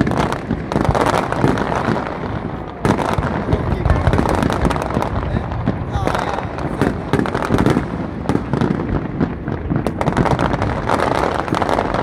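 Aerial fireworks display: many shell bursts going off in quick, overlapping succession, a dense run of bangs with no pause.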